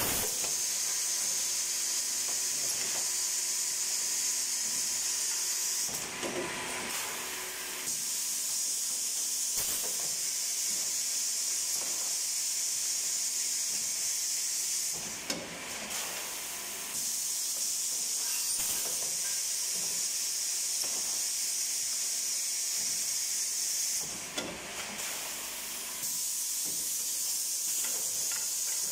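Multifunction woodworking machine running with a steady high hiss, which breaks off briefly three times, roughly nine seconds apart, with a few knocks in each break.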